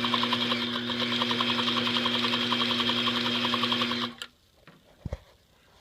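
Pfaff semi-industrial sewing machine running steadily at speed, with a steady motor hum under a fast, even stitching tick. It stops abruptly about four seconds in, and a couple of light clicks follow.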